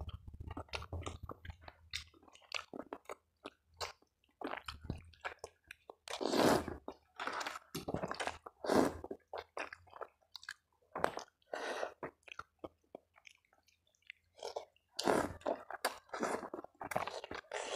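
Close-up chewing and slurping of chicken noodles (mie ayam): irregular wet mouth noises, with a few longer, louder slurps as strands of noodle are drawn in.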